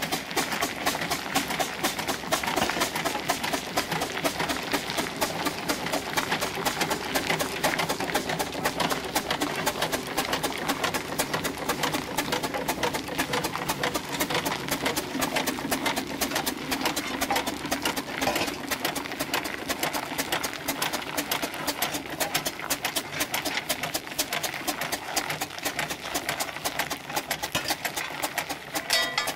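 Steam traction engine running with its flywheel spinning fast: a rapid, even mechanical clatter of the engine's motion.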